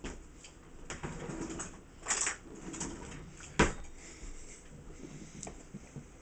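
Faint handling noises and rustling, with one sharp knock about three and a half seconds in.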